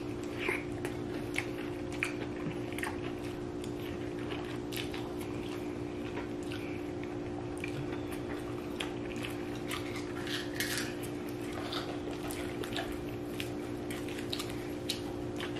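Mealtime eating sounds: scattered light clicks and taps of dishes and cutlery, with chewing, over a steady low hum.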